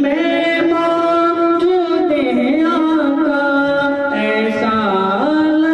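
A man singing a naat, a devotional praise poem, into a microphone, holding long notes that bend and glide from one pitch to the next.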